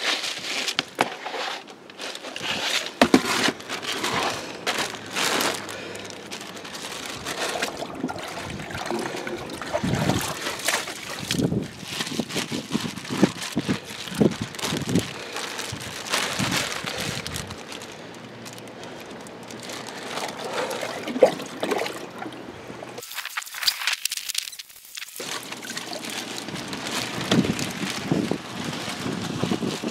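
Seawater splashing and trickling as a plastic bag is dunked and rinsed over the side of a boat, with irregular splashes and crinkles of plastic; the sound breaks off briefly about three quarters of the way through.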